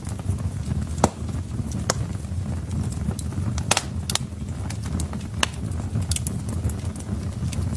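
Wood fire in a fireplace crackling: irregular sharp pops, about one or two a second, over a low steady rumble of the burning logs.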